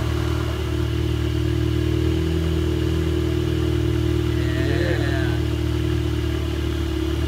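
Volkswagen Mk7 Golf GTI's 2.0-litre turbocharged four-cylinder idling steadily, just after its first start following reassembly.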